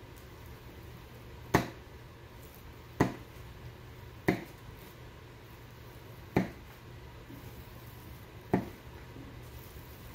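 Five sharp clicks, irregularly spaced about one and a half to two seconds apart, as a soldering iron is worked over a piece of EVA foam on a worktable, over a low steady hum.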